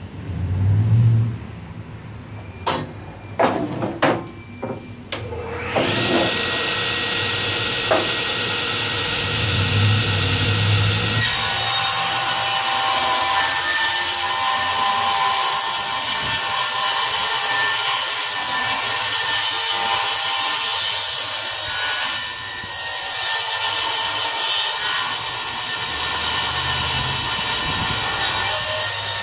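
A few knocks of a board being handled, then a table saw starts and runs at speed. About eleven seconds in its blade begins ripping the board lengthwise, a loud steady cutting noise that straightens the board's second edge, guided by the already straightened edge against the fence.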